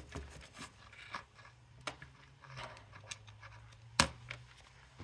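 Quiet scratching and small clicks of a phone and charging cable being handled on a hard surface, with one sharper click about four seconds in.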